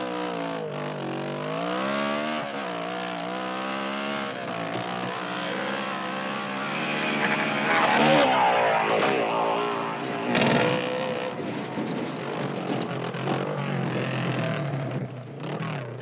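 Dirt bike engines and a car engine running and revving, their pitch rising and falling over and over, loudest about halfway through.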